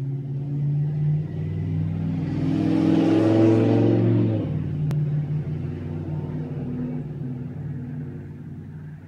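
An engine running nearby, its sound swelling to a peak about three to four seconds in and then fading away, like a vehicle passing.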